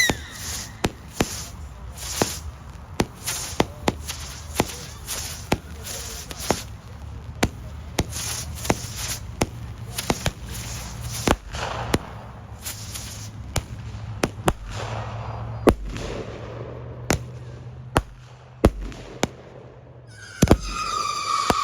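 Chained 200-gram consumer firework cakes firing: a steady string of sharp shots, about one or two a second, with crackle between them. Near the end a whistling tone starts up.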